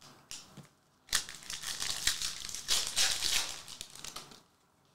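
A stack of glossy hockey trading cards sliding and rubbing against each other as it is fanned and thumbed through. There is a short rustle, then a longer stretch of rustling that stops shortly before the end.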